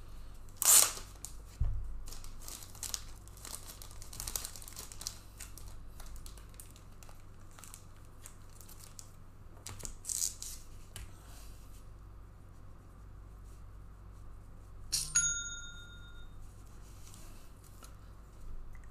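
Trading-card pack wrappers crinkling and tearing, with cards handled in short bursts of rustling. About 15 seconds in there is one short, bright bell-like ding.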